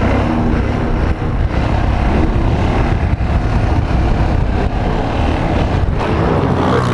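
Yamaha XT 660's big single-cylinder engine running steadily under throttle through a wheelie, with wind buffeting the rider-mounted microphone.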